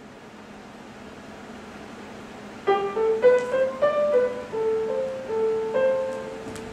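Grand piano playing a slow melody of single held notes, starting a little under halfway in after a few seconds of quiet hall ambience.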